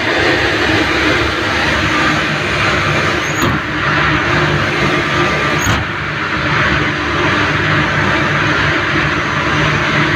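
Steady machinery noise inside the cab of a WAG-7 electric locomotive, with two sharp clicks about two seconds apart near the middle.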